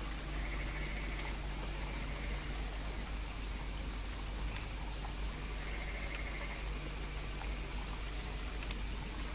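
Steady night chorus of insects chirring, over a faint low steady hum. A faint trill comes twice, each about a second long, near the start and past the middle.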